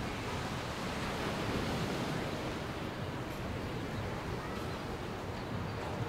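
Ocean waves breaking and washing onto the beach: a steady rushing wash of surf.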